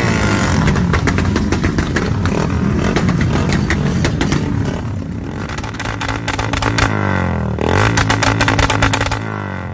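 Yamaha Y15ZR (MX King 150) single-cylinder four-stroke engine being revved, with sharp pops throughout. The revs drop and climb again near the end.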